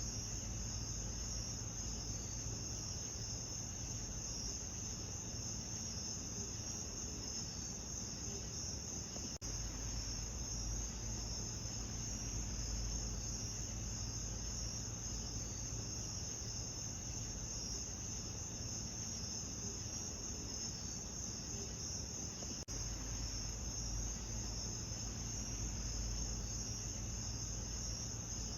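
Steady chorus of night insects, a continuous high chirring, over a low rumble. The sound dips out for an instant twice, at the seams of a looped recording.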